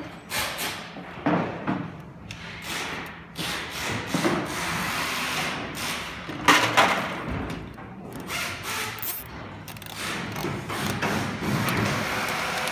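Handling noise of hands working on a linear actuator and its cable against a wooden frame: irregular rubbing and scraping with scattered knocks, the sharpest about six and a half seconds in.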